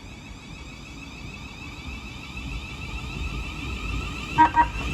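A Class 700 Thameslink electric train sounds two short toots on its horn near the end, over the steady electrical hum of the train at the platform. The hum swells slowly.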